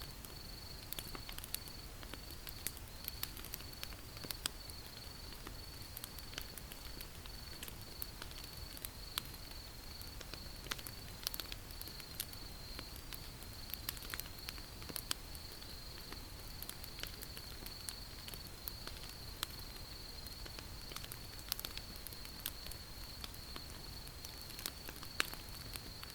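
Wood campfire crackling, with irregular sharp pops and snaps over a low steady rumble of burning. A steady high-pitched insect trill runs underneath.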